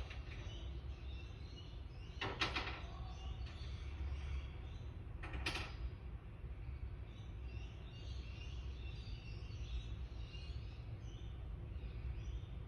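Knocks and bangs coming through from a neighbouring flat over a steady low hum: a short clatter about two seconds in, then a single sharp knock a few seconds later.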